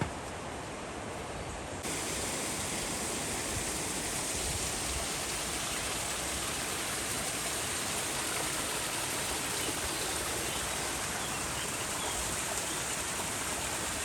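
Rushing water, a steady even hiss that jumps louder about two seconds in and then holds.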